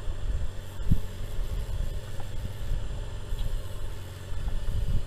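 A fishing boat's engine running steadily with a low hum, and a dull knock about a second in.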